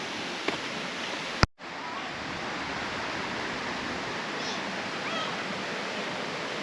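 Steady rush of water from a waterfall and its creek, with a sharp click and a brief dropout about one and a half seconds in.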